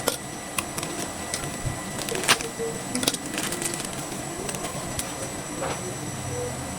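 Small tools and metal parts clicking and tapping irregularly, about a dozen sharp clicks, over steady background noise with a faint high whine.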